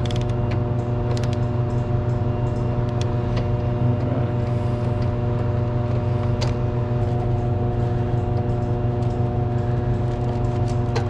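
Steady, even machinery hum running throughout, with a few light clicks as wires and connectors are handled inside an electrical drive cabinet.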